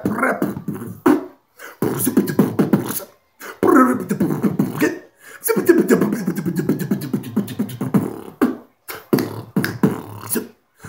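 Beatboxing: rhythmic mouth percussion of clicks mixed with voiced hums, in several phrases broken by short pauses.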